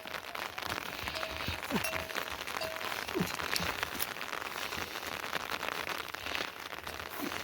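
Steady rain falling, a dense even hiss of many small drops. A faint thin tone comes and goes over it during the first three seconds.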